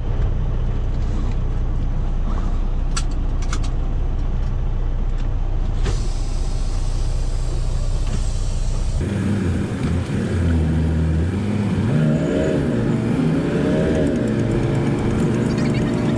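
Semi truck's diesel engine idling with a steady low drone, with a few sharp clicks. About nine seconds in the sound changes abruptly to the engine running with its pitch rising and falling as the revs change.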